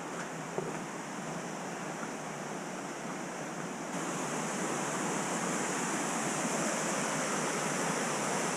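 Steady outdoor rushing noise, getting a little louder and brighter from about four seconds in.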